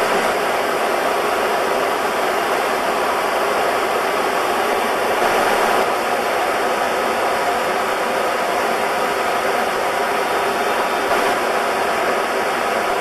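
Steady, even in-flight cockpit noise of an Airbus A300-600R airliner: airflow and engine noise heard on the flight deck, with no changes.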